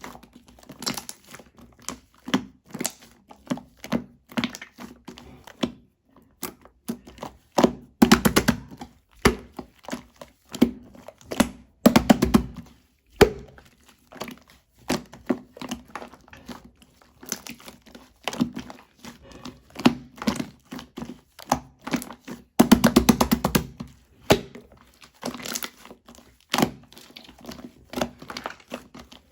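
Shaving foam slime being squeezed, stretched and pressed by hand, with steady trains of wet clicks and air-pocket pops. It breaks into fast bursts of crackling three times, about eight, twelve and twenty-three seconds in.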